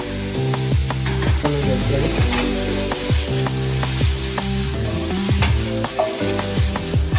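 Broccoli frying and sizzling in a skillet as it is tossed in the pan, with background music carrying a deep, repeated bass note.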